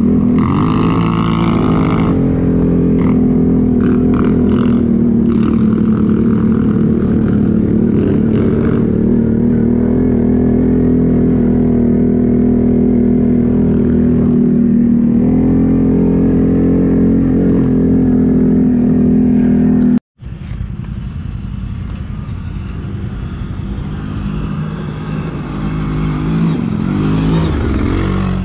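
ATV engine running steadily under load at an even pitch. It cuts out abruptly for an instant about two-thirds of the way through, then carries on quieter.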